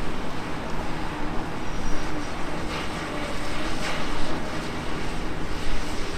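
Komatsu PC360LC excavator's diesel engine running steadily as it works, with two short rushes of noise about three and four seconds in.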